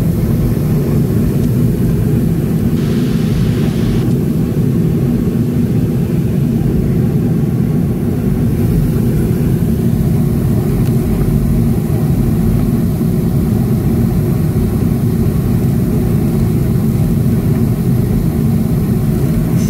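Boeing 737-500 taxiing, heard from inside the cabin over the wing: its CFM56-3 turbofan engines run steadily at low taxi thrust, a constant low rumble with a faint steady hum. A brief hiss comes in about three seconds in.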